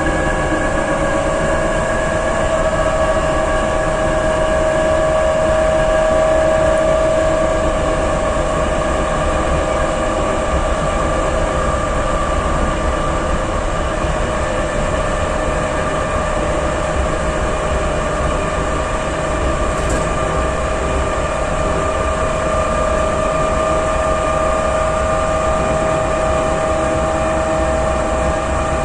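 An EN57 electric multiple unit's motor car running at steady speed, heard from inside the passenger compartment. The traction motors and gearing whine in several steady tones over a continuous rumble of wheels on rail, and the main whine rises slightly in pitch over the first few seconds before holding.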